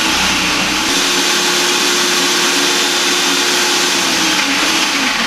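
Electric food processor running with its grating disc, shredding potatoes and onion pushed down the feed chute. A steady motor whine and grinding noise, whose pitch sags briefly a few times as the load comes on.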